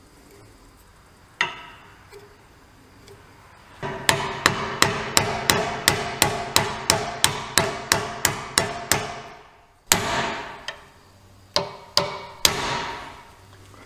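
Hammer striking a steel punch set on the steel pommel cap of a stacked-leather knife handle. There is one blow, then a quick run of about fifteen ringing blows at about three a second, then a few single heavier strikes near the end.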